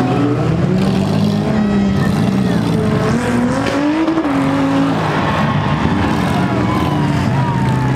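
Several demolition derby cars' engines revving hard, their pitches climbing and falling over one another, as the cars shove into each other on the dirt.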